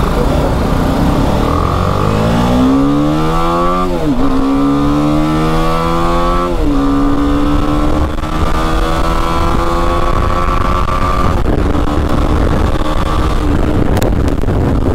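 BMW G 310 GS's single-cylinder engine pulling away from a standstill and accelerating through the gears: the engine note rises, drops at a gear change about 4 s in, rises again, drops at a second shift about 6.5 s in, then climbs slowly and levels off at a steady cruise.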